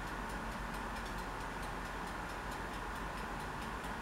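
Low steady hiss of background noise with faint, regular ticking at about four ticks a second.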